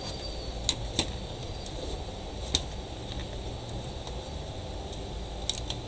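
A few sharp clicks and light knocks from laptop parts being handled on a workbench, two close together near the end, over a steady low hum.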